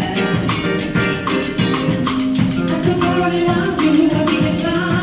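Latin-style dance music with a steady beat and shaker percussion.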